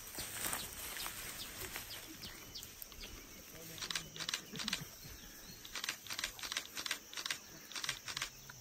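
Rain-forest ambience with clusters of short, sharp crackling and rustling sounds, bunched around the middle and the second half.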